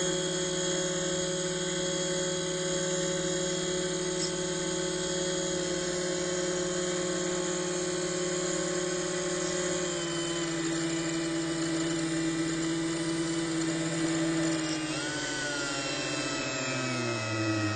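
Electric drive motor of a Robbe Seawolf model submarine whining steadily while running submerged. It drops slightly in pitch about ten seconds in, then slides lower and wavers near the end as the motor speed changes.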